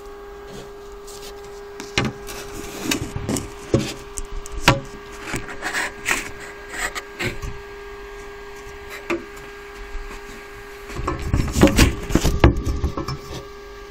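Handling noise from a phone being moved about and set up: rubbing and scattered knocks on the microphone, with a louder spell of rubbing and knocks about eleven seconds in, over a steady hum.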